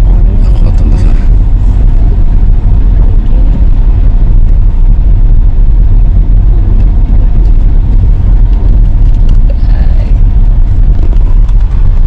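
A moving vehicle: a loud, steady low rumble with a noisy haze over it.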